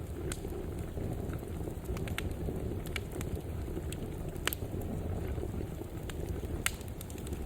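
Wood fire burning in a fireplace: a steady low rush of flames with scattered sharp crackles and pops, two louder pops about four and a half and nearly seven seconds in.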